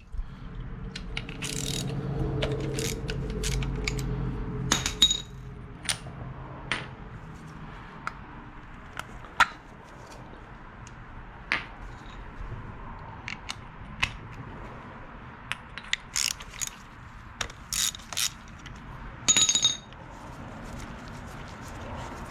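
Socket ratchet clicking in short bursts, with sharp metal tool clinks, while spark plugs are worked out of a motorcycle engine's cylinder head.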